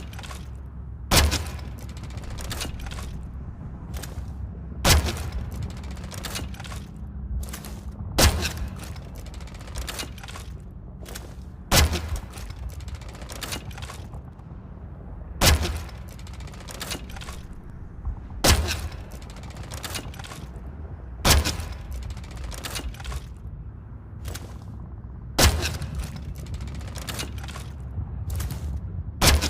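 Crossbow shots fired over and over: a sharp snap about every three to four seconds, nine in all, with smaller clicks between them and a steady low hum underneath.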